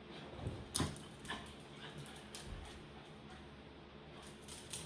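Dogs moving about, with a few scattered light clicks and knocks, the sharpest a little under a second in.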